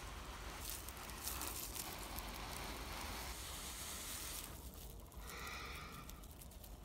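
Breath blown hard and steadily into a smouldering tinder bundle, a rushing hiss of air, to nurse a fire-roll ember up into flame; the blowing eases briefly a little past halfway.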